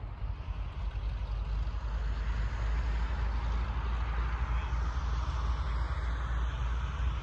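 Distant DHC-2 Beaver floatplane on its takeoff run across the water, its engine at full power as a broad drone that swells louder over the middle few seconds as the plane comes closer. A steady low rumble of wind on the microphone runs underneath.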